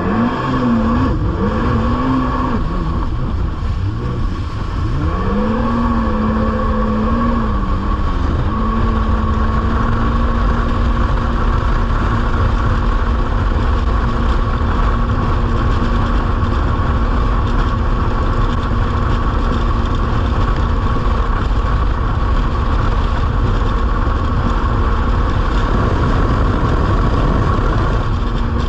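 Jet ski engine revving up and down for several seconds, then running at a steady pitch, with a heavy low rumble throughout.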